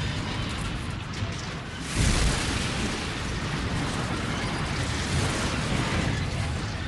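Train crash sound effect: a sudden loud crash about two seconds in, followed by a heavy noisy din that carries on for several seconds.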